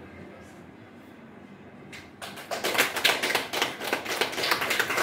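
Audience applauding, breaking out about two seconds in after a low murmur in the room.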